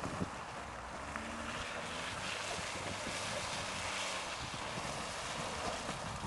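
Wind buffeting the microphone, with a Toyota RAV4's engine faintly audible underneath as it drives through the muddy field.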